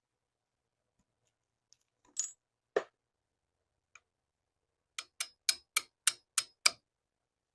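Small metal pistol parts being handled: a short scrape and a knock, then a run of seven sharp metallic clicks in quick succession, about four a second.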